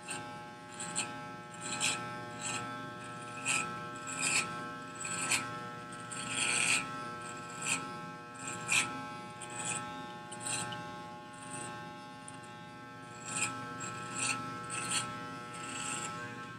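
Electric hair clippers running without a guard, a steady buzz with short rasping strokes about once a second as the blades cut hair at the side of the head.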